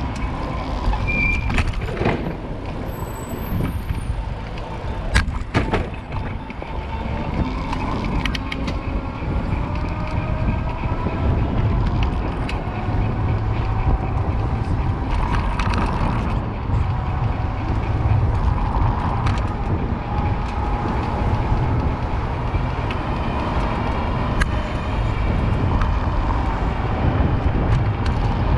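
City street traffic heard from a moving bicycle: a steady low rumble of road and wind noise with passing motor vehicles, one engine whine rising slowly in pitch around the middle. A few sharp clicks or rattles come in the first few seconds.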